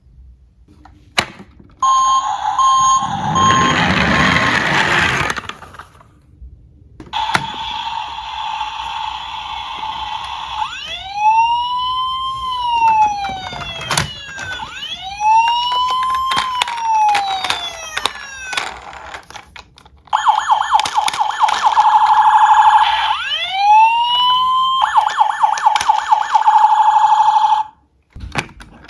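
Emergency-vehicle sirens: a steady tone, then a wail rising and falling about every four seconds, then a fast warble. A short noisy rattle comes a few seconds in.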